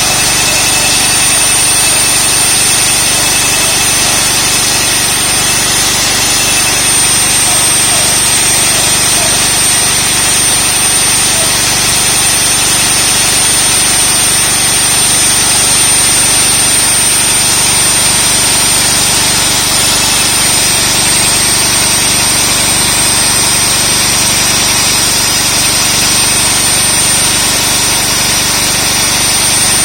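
Concrete core drill running steadily, its diamond bit cutting into concrete, with a constant high-pitched whine over the grinding noise.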